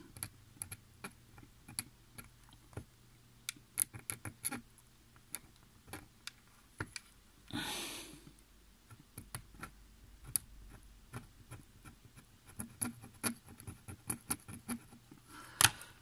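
Irregular small ticks and scrapes of a pointed knife blade scratching the insulating film off one track of a flexible flat cable against a metal plate, exposing the copper track. A short rustling scrape comes about halfway through, and one sharper click near the end.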